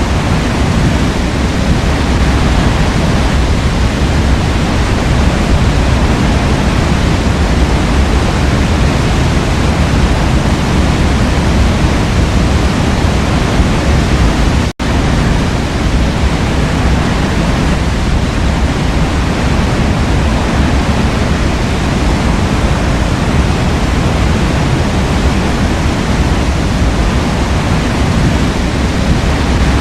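Steady rush of a waterfall, loud and even, with a split-second dropout to near silence about halfway through.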